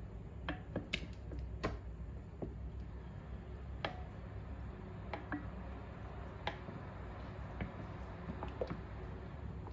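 A spatula stirring buttermilk in a glass bowl: soft wet squishing with irregular light clicks as the utensil taps the glass, about one every second.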